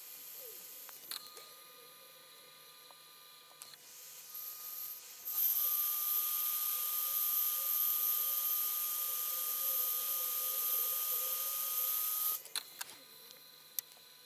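Desoldering tool running on the projector's power-jack joints: a loud steady air hiss with a steady whine for about seven seconds, which cuts off suddenly, followed by a few sharp clicks. A fainter hum with a whine comes and goes before it.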